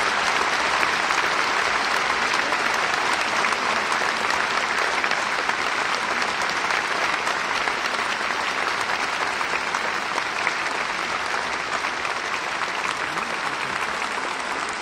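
Large audience applauding steadily, a dense patter of many hands clapping that slowly dies down toward the end.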